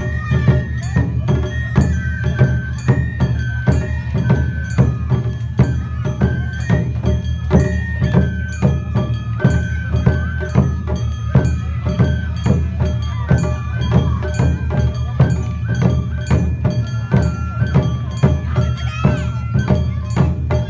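Live Japanese festival dance music in the Awa-odori style: drums and a small bell beating a steady, driving rhythm under a high bamboo-flute melody of held notes.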